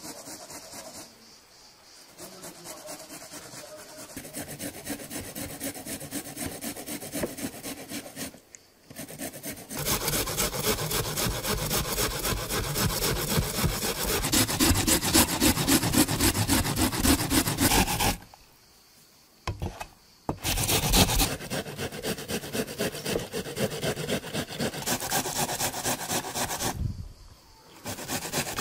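Onion being grated on a metal hand grater: fast, rhythmic rasping strokes in several runs with short breaks between them.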